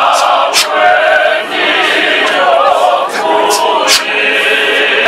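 A mixed choir of men's and women's voices singing together, with no instruments heard and a few sharp hits cutting through.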